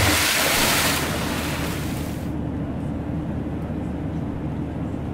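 Passenger jet cabin noise: a steady rushing drone of the engines and airflow, with a low hum. It is louder and hissier for the first two seconds or so, then drops to a duller, even drone.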